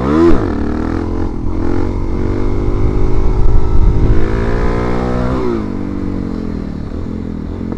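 Dirt bike engine revving sharply as the throttle snaps open, then pulling hard with its pitch climbing steadily, before falling about two thirds of the way through as the throttle is rolled off and it settles lower. Wind rushes over the helmet-mounted microphone underneath.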